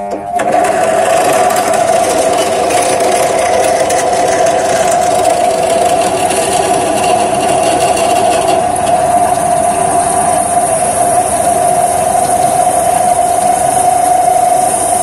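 Bench drill press running at speed, its 5 mm twist bit cutting a pilot hole through 40×40 steel hollow section, with a steady motor hum. A thin high cutting whine grows stronger in the second half.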